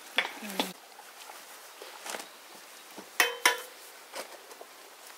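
Metal kitchen utensils clinking against a stainless-steel stockpot, two sharp ringing clinks about a third of a second apart a little past halfway, with a couple of shorter knocks near the start.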